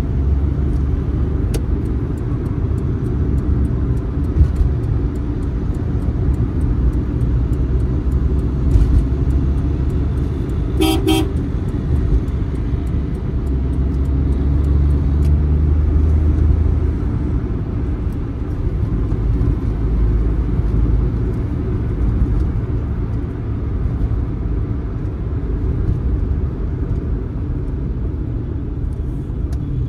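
Suzuki Mehran's 800 cc three-cylinder engine and tyre noise heard from inside the cabin while driving, a steady low rumble. About eleven seconds in, a vehicle horn toots once, briefly.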